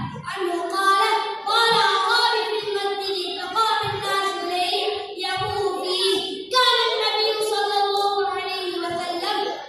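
A boy's voice singing solo into a microphone, a chanted melody in phrases with long held notes and slides in pitch.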